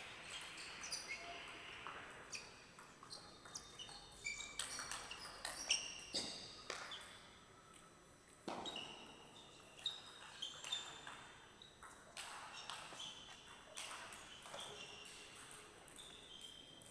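Table tennis rally: the celluloid ball clicking off rubber paddles and the table at an irregular pace, mixed with short high squeaks of shoes on the court floor.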